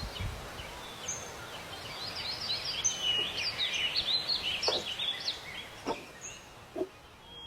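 Several songbirds chirping and singing in quick, high, overlapping phrases over a steady outdoor hiss, busiest in the middle. A few soft knocks in the second half.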